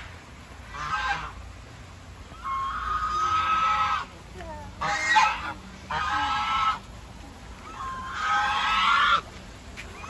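Domestic goose honking five times, the longer calls lasting a second or more.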